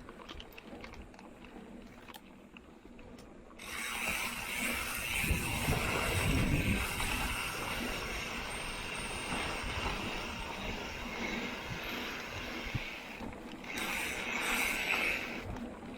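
Mountain bike rolling on a dirt trail: tyre and wind noise, with the high-pitched buzz of an Industry Nine Hydra rear hub freewheeling while coasting. The buzz comes in about four seconds in, with brief breaks near the end.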